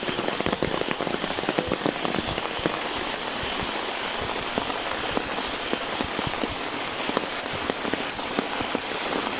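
Steady rain falling: a dense patter of many close drop hits over an even hiss.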